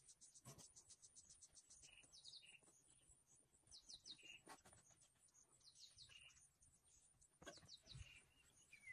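Faint birdsong: a short phrase of three quick high notes, repeated every second and a half or so, over a fast, even high ticking in the first two seconds.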